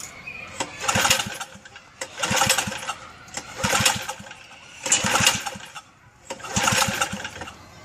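Old tiller's Tecumseh small engine being pull-started with its recoil rope: five pulls, about one every second and a half, each a brief whirr of the engine turning over without catching. The owner puts the failure to start down to it not getting gas.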